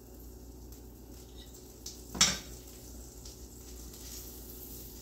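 Kitchen handling sounds at a stove: a few light clicks and one sharp knock about two seconds in, over a faint steady hum, as a pat of butter is put into a nonstick skillet and the butter dish is handled.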